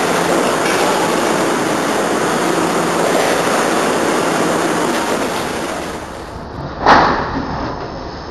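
Steady mechanical noise of a vegetable packing line, with conveyor belts and packing machines running. About seven seconds in comes a single loud knock, and after it the noise is quieter.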